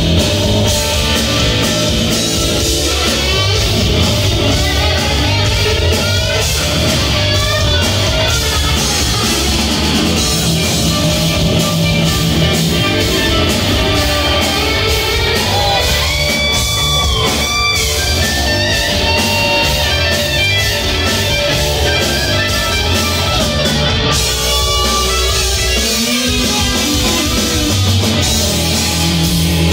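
Live hard-rock trio playing loud and steady without vocals: electric guitar over electric bass and a drum kit, with gliding, bent guitar notes about halfway through.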